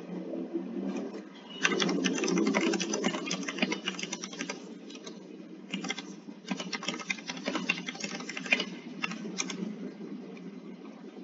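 Rapid typing on a computer keyboard, heard over a video call in two spells of a few seconds each with a short burst near the end, over a steady low background hum.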